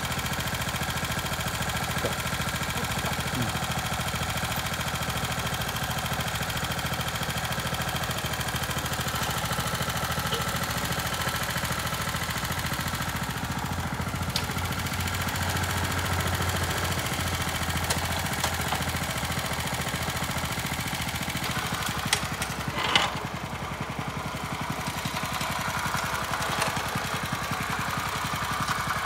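Honda F510 tiller's 5-horsepower engine running steadily, with a brief clank about three-quarters of the way through.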